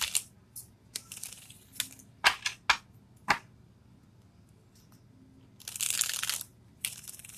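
A deck of tarot cards being shuffled by hand. There is a scattering of sharp card snaps and taps, then a longer rustle of cards sliding against each other about six seconds in.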